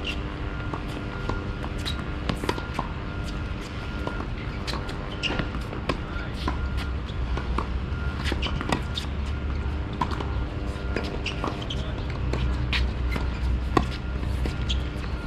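Tennis balls struck by rackets and bouncing on a hard court: sharp pops at irregular intervals, some near, some from neighbouring courts, over a steady low rumble and hum.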